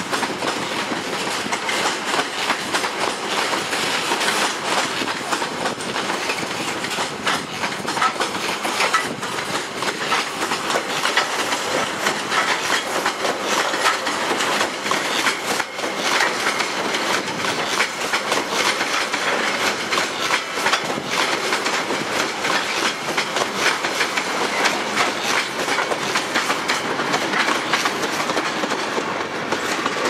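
Freight train wagons rolling past close by, their steel wheels clicking rapidly over the rail joints amid steady rattling track noise.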